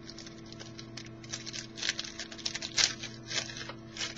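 Foil trading-card pack wrapper crinkling as it is handled, a fast irregular run of crisp crackles.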